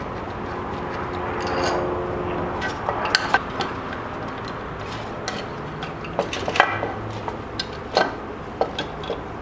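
Metal hand tools and parts clinking and clattering during motorcycle work, a series of irregular sharp metallic clinks, a few of them ringing briefly.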